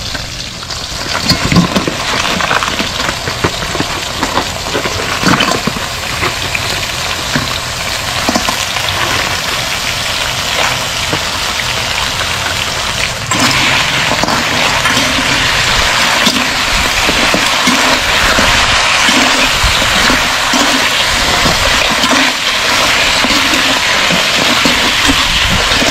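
Crabs sautéing in a hot pan: a steady sizzling hiss with a few knocks in the first half, which steps up louder about halfway through.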